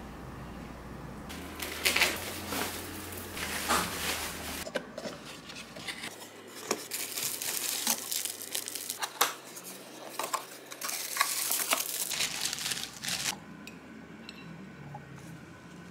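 Plastic bubble wrap crinkling and rustling as a parcel is unpacked, with cardboard flaps being handled and light knocks of a ceramic mug.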